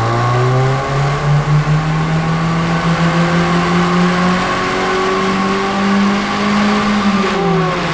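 Car engine accelerating at full throttle in fourth gear on a rolling road (chassis dynamometer), with the driven wheels spinning the rollers. Its pitch climbs steadily for about seven seconds, then falls away near the end as the throttle is released.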